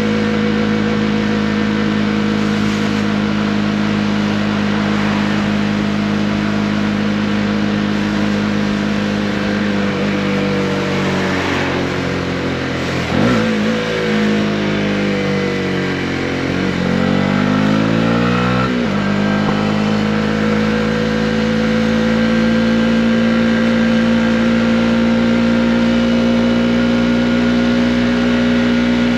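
Honda CB125R single-cylinder four-stroke motorcycle engine under way: it holds a steady pitch, then the revs fall off from about ten seconds in with a quick throttle blip near the middle. The pitch keeps sinking, jumps back up suddenly just before twenty seconds in, then holds and slowly rises.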